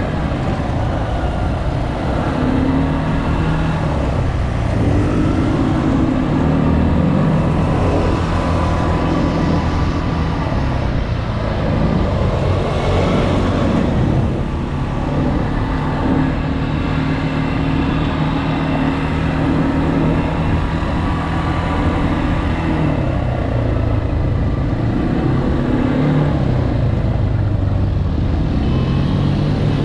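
ATV engine running while riding, its pitch rising and falling repeatedly as the throttle is opened and eased.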